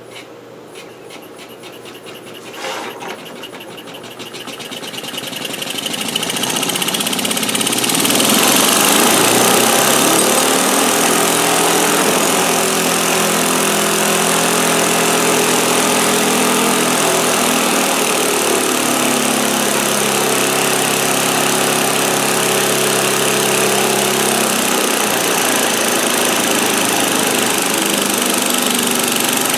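Homemade hybrid-uniflow piston steam engine running on compressed air. It starts with slow, light ticking, then speeds up over several seconds as the air is turned up into a fast, loud, steady hissing run. Its speed and pitch rise and fall a few times as the pressure is adjusted.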